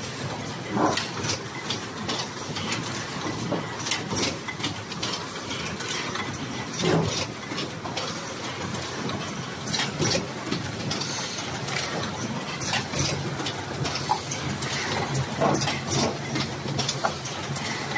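Automatic round-corner hardcover case making machine running: a continuous mechanical clatter full of irregular sharp clicks and knocks, over a low hum that grows steadier in the second half.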